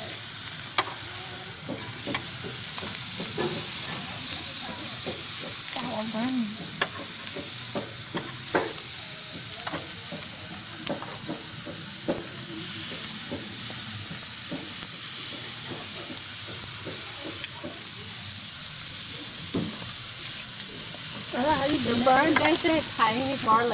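Whole prawns sizzling on a hot tabletop grill plate: a steady hiss of frying, with scattered sharp clicks of metal tongs against the shells and the grate as the prawns are turned.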